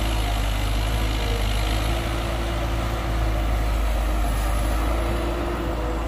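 Heavy diesel engine of construction machinery running steadily with a deep, even drone.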